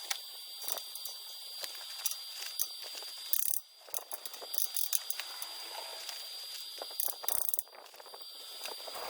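Stick-welding arc crackling and sizzling, from a small inverter welder burning thin low-voltage steel electrodes, with irregular sharp pops through it.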